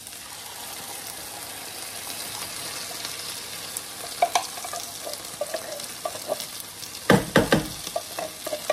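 Tinned baked beans in tomato sauce landing in a hot frying pan of sautéed vegetables, sizzling steadily. From about halfway, a wooden spoon scrapes the beans out of the tin with scattered clicks, and there is a quick run of loud knocks about seven seconds in.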